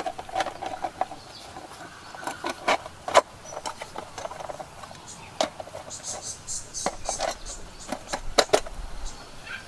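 Scattered sharp clicks and knocks of small camp gear being handled, with no steady rhythm.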